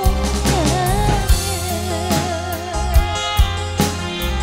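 Live campursari dangdut band music: a woman singing over the band, with a long wavering note and regular drum beats.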